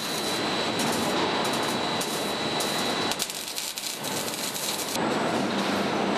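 Steady machinery noise of a car-body assembly line. From about three seconds in, a hand-held arc-welding gun crackles and sizzles for about two seconds, and a steady low hum then comes in.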